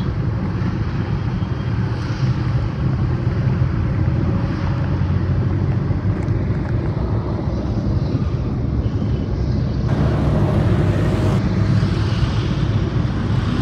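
Steady road and engine noise of a moving car heard from inside the cabin, a continuous low rumble with some wind noise.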